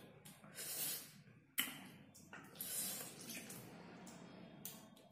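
Wet eating sounds as juicy Hei-Yai fruit mixed with salt and chilli is handled and chewed: uneven smacking and squelching bursts, with one sharp click about one and a half seconds in.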